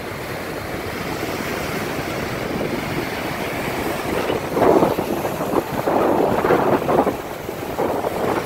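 Surf breaking and washing up a sandy beach, with wind buffeting the microphone. A louder rushing surge swells up about halfway through and lasts a couple of seconds.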